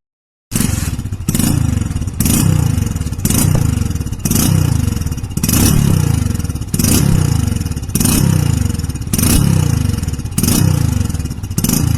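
Hero Splendor Plus single-cylinder engine blipped over and over through a modified Kolhapur-style GCL silencer, about once a second. Each blip sets off a short crackling burst from the exhaust, and the revs fall away after it.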